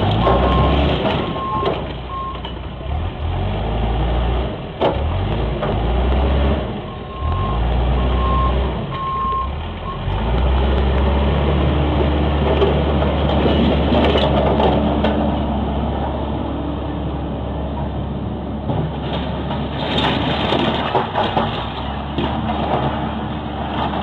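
Backhoe's engine running loud and low, while its reversing alarm beeps in two spells: near the start and again about seven to ten seconds in. A few sharp knocks come through, one about five seconds in and a cluster near the end.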